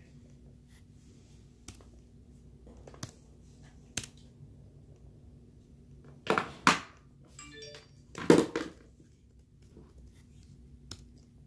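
A few single laptop key presses and clicks, spaced seconds apart, over a faint steady hum. About six and a half and eight and a half seconds in come two louder rustling, scuffing noises, each about half a second long.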